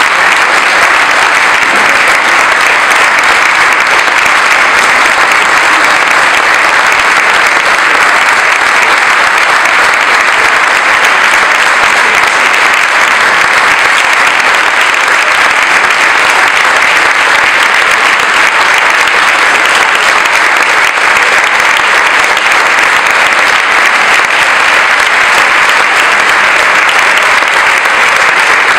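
Audience applauding steadily and at length, a dense, even clapping that does not let up.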